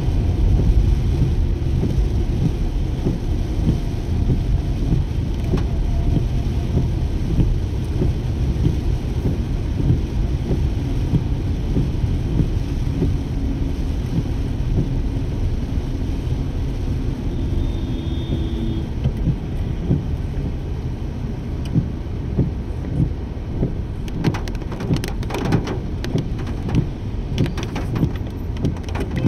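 Steady low road and engine rumble heard from inside a car driving in rain, with rain on the car. Near the end comes a run of sharp clicks, about one a second.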